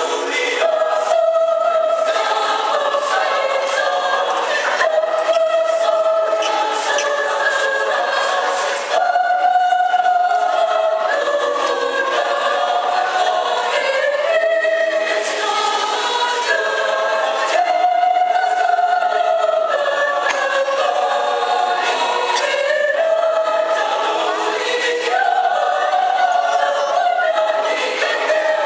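Mixed church choir of men and women singing in parts, holding long notes that move smoothly from pitch to pitch.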